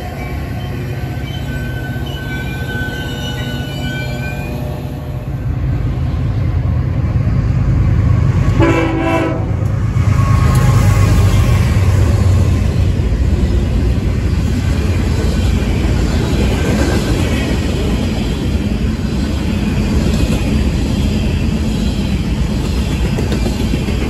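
A freight train passes close by: BNSF diesel-electric locomotives, then tank cars and covered hopper cars, with a steady heavy rumble of engines and wheels on rail that swells about five seconds in. A short train horn blast sounds about nine seconds in, and faint wheel squeal is heard in the first few seconds.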